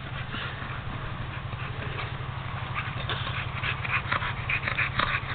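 Pit bull making dog sounds as it leaps at low tree limbs, with a quick run of crackling rustles from about halfway through that grows louder toward the end.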